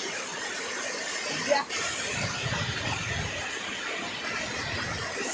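Waterfall and rushing water giving a steady, even roar of white water, with a brief break about one and a half seconds in.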